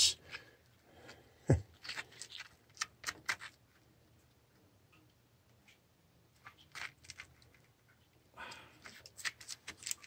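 A pocket-knife blade clicking and scraping against the brass body of a boiler water feeder valve as it pries at a stuck, calcified rubber diaphragm disc. Short scattered clicks, loudest about a second and a half in, with a quiet stretch in the middle before more clicking.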